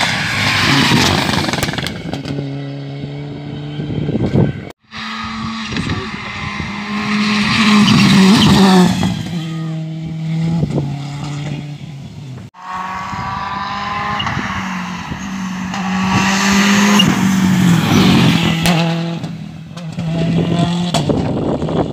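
Rally cars at full throttle on a tarmac special stage, in three short clips cut together: each engine revs hard and climbs in pitch, drops at each gear change and climbs again as the car approaches and passes. The clips end abruptly about five seconds in and again about halfway through.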